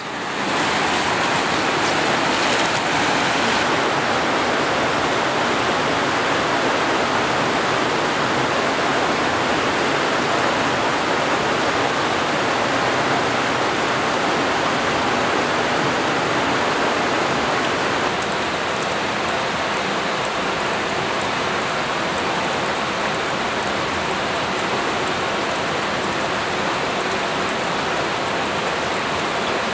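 Steady rushing of a nearby creek's rapids, with runoff dripping from the top of an old timbered mine adit into a flooded pool. About 18 seconds in, the rush eases slightly and the patter of the drips comes forward.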